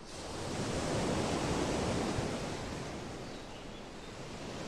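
Ocean surf washing onto a beach, a steady rushing that swells over the first second and eases off slightly near the end.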